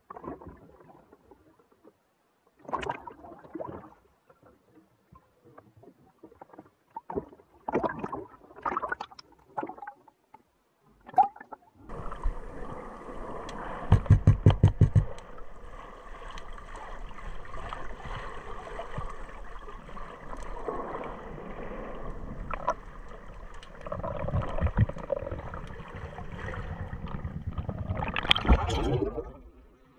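Choppy sea water splashing and slapping against a waterproof action-camera housing at the surface, in short irregular bursts. About twelve seconds in, the camera goes under and the sound becomes a steady muffled underwater rush, with a quick run of loud thumps soon after. Near the end there is a final burst of splashing as the camera nears the surface.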